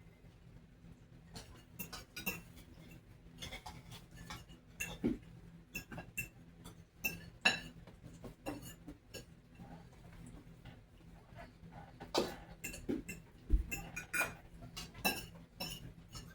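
Forks and spoons clinking and scraping against plates and bowls while people eat, in irregular short clicks. A faint steady low hum runs underneath.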